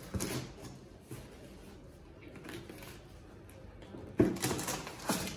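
Cardboard box being opened: the flaps rustle, and blue scissors cut through the packing tape, with a louder run of cutting and scraping about four seconds in.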